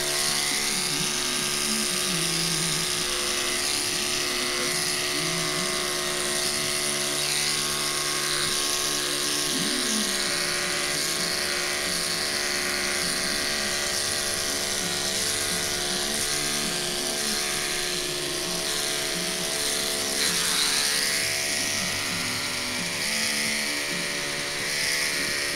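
Corded electric pet clippers running steadily with a constant motor hum while shaving a long-haired cat's coat.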